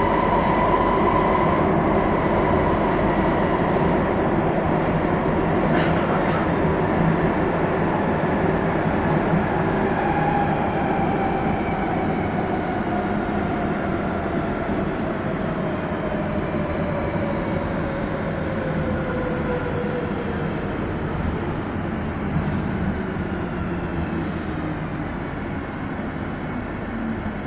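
Madrid Metro Line 2 train running through a tunnel, heard from inside the car: a steady rumble of wheels on rail with an electric motor whine, and a brief sharp noise about six seconds in. From about ten seconds in the whine falls steadily in pitch as the train slows for the next station.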